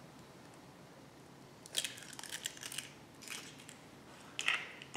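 An eggshell being cracked and pulled apart over a mixing bowl: a cluster of small crackling clicks about two seconds in, with a few more near the end.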